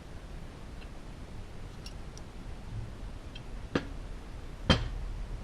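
A few faint ticks, then two sharp knocks about a second apart, the second louder, over a steady low hum.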